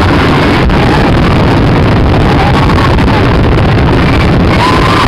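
Fireworks finale barrage: many aerial shells bursting at once, their booms running together into a loud, continuous rumble with a few sharper cracks.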